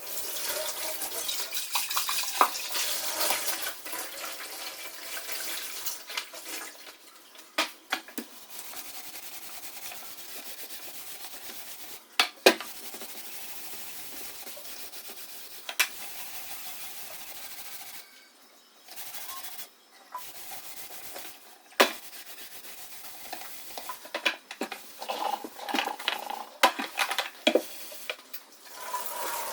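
Household cleaning with water running from a tap and scrubbing or wiping, loudest in the first few seconds, with scattered sharp knocks and clinks of items being handled.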